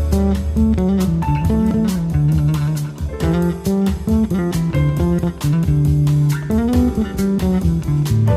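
Background music: guitar and bass guitar playing a steady, rhythmic instrumental.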